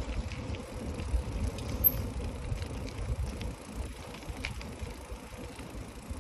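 Bicycle riding on a paved road, heard from the handlebars: a low rumble of wind on the microphone and tyre noise, with a few light rattles and clicks from the bike.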